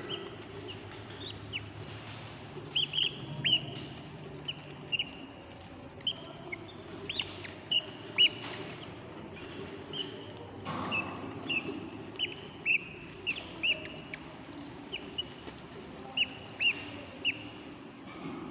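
Budgerigars chirping: many short, high chirps, most sliding downward, at irregular intervals over a faint low steady hum.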